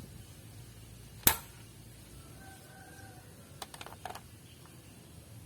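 Nerf Alpha Strike toy blaster fired with one sharp snap about a second in, followed a couple of seconds later by a quick run of lighter plastic clicks from handling or re-priming it.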